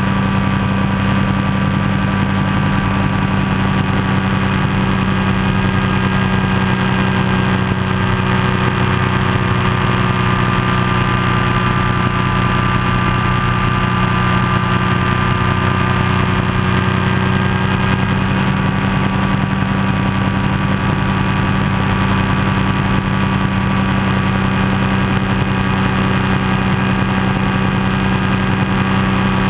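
Ultralight floatplane's engine and propeller droning steadily in level cruise flight, with an even, unchanging pitch.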